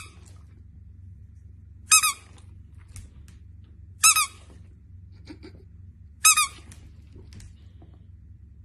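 Squeaky dog toy squeezed about every two seconds, each squeeze giving a short, high double squeak.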